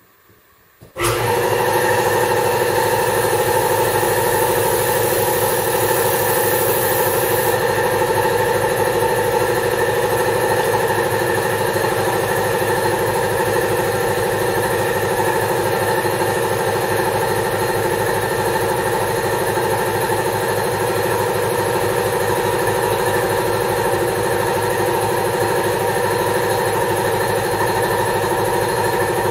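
Air compressor starting up about a second in and then running steadily, pumping air to the line, with a high hiss over the first several seconds.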